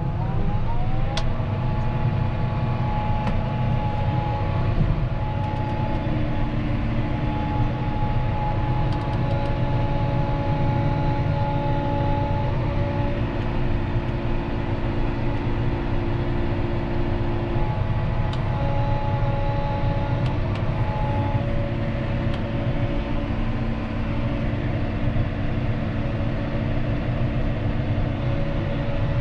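John Deere 6215R tractor's six-cylinder diesel running steadily under field load: a low rumble with steady whining tones over it. The pitch climbs briefly about a second in, then holds.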